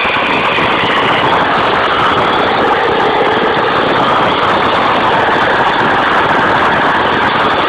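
Heavy vehicle engine running steadily and loudly, with no pauses or changes.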